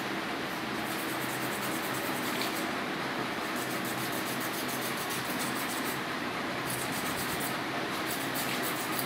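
Steady noise with a faint low hum, and two faint clicks, about two and a half seconds in and near the end: a nail clipper snipping a golden retriever's nails.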